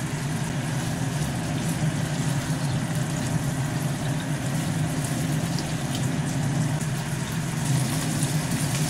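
A steady low hum under chicken-and-mushroom stew simmering in a soy-based sauce in a nonstick wok, with a spatula stirring through it.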